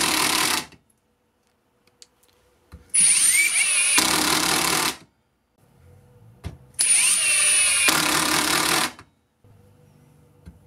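HiKOKI WH36DC 36 V impact driver driving small screws into timber on its self-drilling (Tek) screw setting, which slows the driver at the end of each screw. One run ends just under a second in, then two runs of about two seconds each follow, each with a high whine and a change in sound partway through.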